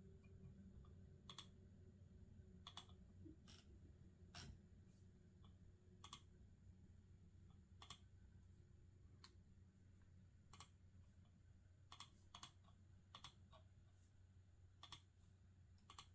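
Faint, scattered computer keyboard and mouse clicks, about one a second at irregular spacing rather than a run of fast typing, over a faint steady low hum.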